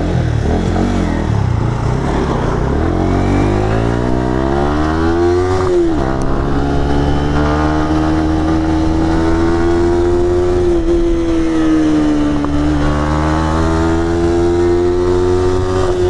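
Yamaha R15's single-cylinder four-stroke engine heard from the rider's seat, revving up as the bike accelerates away, with a sharp drop in pitch at an upshift about six seconds in. It then runs at a fairly steady pitch with small dips, climbs slowly again and drops at another upshift near the end.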